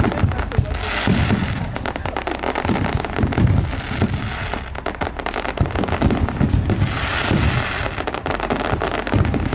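Fireworks display: dense rapid crackling with repeated deep booms every couple of seconds.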